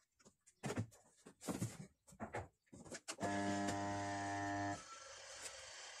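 A few short knocks and clicks, then about three seconds in the twin tub spin dryer's motor gives a steady hum for about a second and a half, stops, and starts humming again right at the end. The motor is failing: belted to the spin drum, it hums but cannot turn it.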